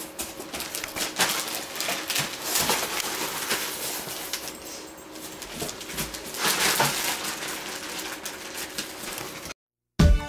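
Rustling and crinkling of packaging being handled, with many scattered clicks and light knocks; it cuts off suddenly near the end.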